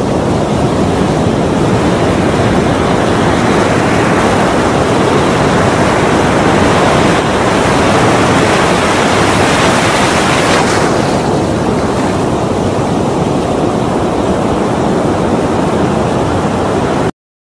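Ocean surf: continuous rushing of breaking waves, swelling to a fuller, brighter wash through the first ten seconds or so and easing a little after, then cutting off abruptly at the very end.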